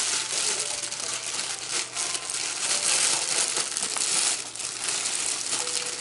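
Clear plastic gift wrapping crinkling and rustling continuously as a present is handled and pulled out of a paper gift bag.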